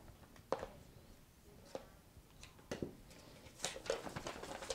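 A few light clicks and scrapes of a rotary cutter and acrylic ruler trimming fabric and foundation paper on a cutting mat. Near the end come denser rustling and crinkling as the paper and fabric are handled and folded.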